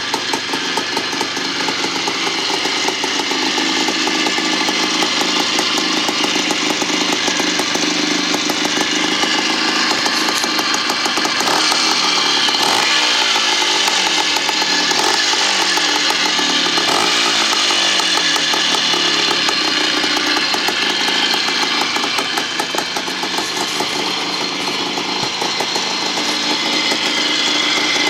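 Freshly rebuilt 1975 Bultaco Sherpa T 350's single-cylinder two-stroke engine running, with the throttle blipped up and down several times partway through.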